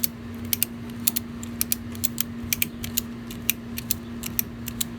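Ratchet strap handle being cranked back and forth, its pawl clicking over the gear teeth a few times a second, often in quick pairs. The webbing is being overwound onto the spool until it jams.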